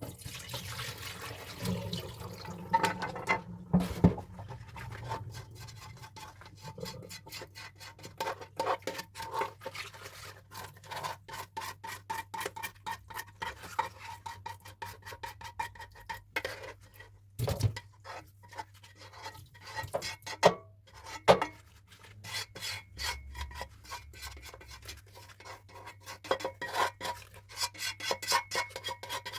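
Dishes being scrubbed by hand: quick repeated rubbing strokes, with a few louder knocks of dishware now and then.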